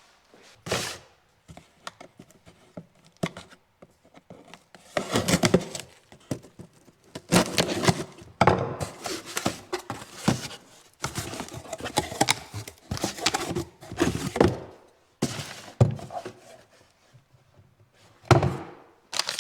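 A series of irregular thuds and knocks, some sharp and some longer and scraping, with no steady rhythm.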